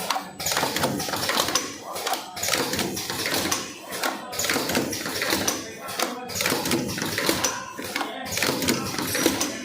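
Vertical cartoning machine running, a dense mechanical clatter that dips briefly about every two seconds as it cycles.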